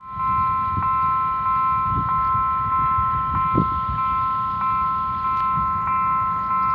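Level crossing warning bell ringing, struck about three times every two seconds, each strike ringing on in two high tones over a low rumble: the signal that a train is approaching.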